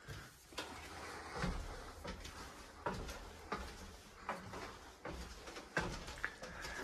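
Footsteps climbing a spiral staircase: a knock on each tread, about one every three-quarters of a second, over a steady low rumble.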